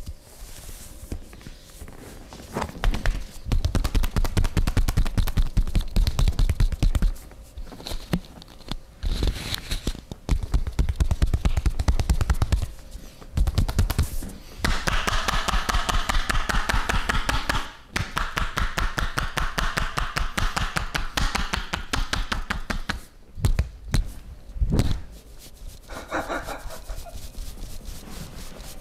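Rapid, rhythmic hand strikes of a barber's percussive massage: quick chopping and slapping blows delivered in runs of several seconds with short pauses between them.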